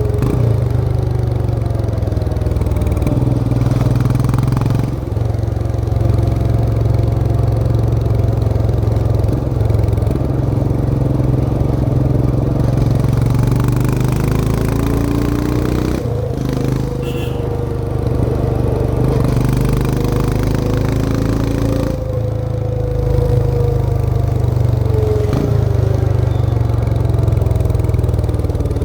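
Royal Enfield Himalayan 411's air-cooled single-cylinder engine running under way, its note gliding up and down with the throttle. The note breaks off and picks up again briefly a few times, near 5, 16 and 22 seconds in.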